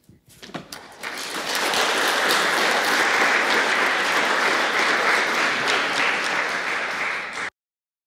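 Audience applauding: a few scattered claps, then full applause from about a second in, cut off suddenly near the end.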